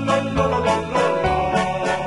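Background music: a bright keyboard tune with bell-like notes over a steady beat.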